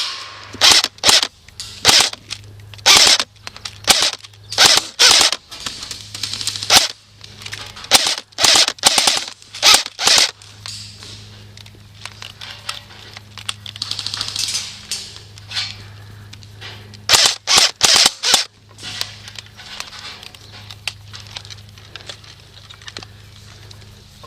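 Airsoft guns firing sharp single shots and quick bursts, thick through the first half and again in a flurry past the middle, sparser near the end, over a steady low hum.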